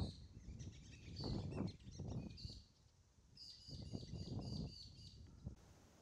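Grey-crowned babblers calling in short high chirps, with a quick run of about six notes past the middle, over low rumbling that swells and fades several times. Near the end it drops to a faint steady hiss.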